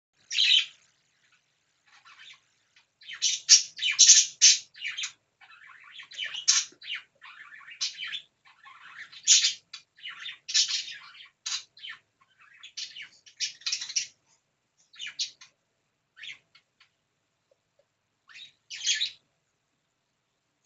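Baby pet bird giving short, harsh chirps and squawks while being hand-fed a strawberry, several in quick succession with pauses between the bursts.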